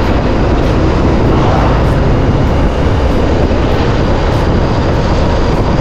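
Moving vehicle on the road: a steady, loud, deep rumble of engine and road noise.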